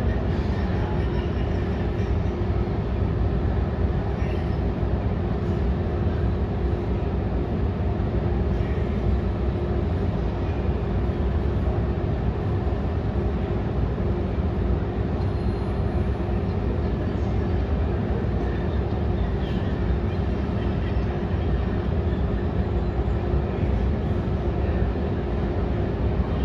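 Steady low rumble of an airliner's cabin noise with a constant droning hum.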